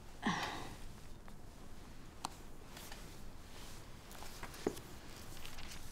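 Quiet room with faint rustling and a few small, soft clicks.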